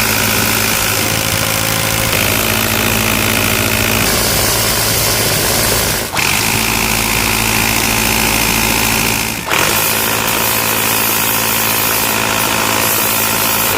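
Airsoft minigun firing long, continuous bursts: the electric motor spinning the rotating barrels with a steady buzz while BBs fire at a very high rate. The fire breaks off briefly twice, about 6 and 9.5 seconds in.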